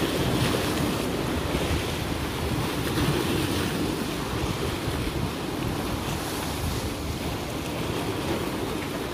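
Sea waves washing against a rock breakwater, with wind buffeting the microphone: a steady rushing noise.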